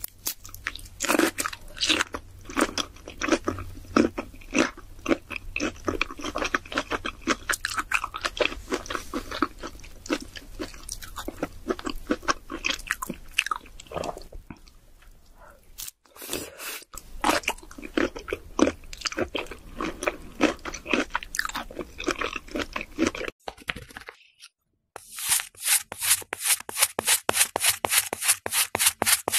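Close-miked eating of raw shrimp: wet chewing and crunchy bites that come and go irregularly, with a short break partway through. After a brief silence near the end, a pencil tip is pushed again and again into kinetic sand, giving a fast, even run of crunchy scraping strokes, about four or five a second.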